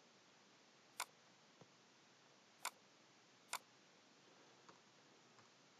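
Three sharp computer mouse button clicks, a second or so apart, with a few fainter ticks between, over near silence.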